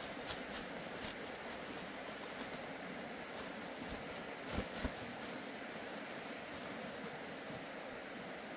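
A red woven sack being shaken out over a dug garden bed: light ticks of its contents dropping onto the soil, then two short, low flaps of the sack about halfway through, over a steady background hiss.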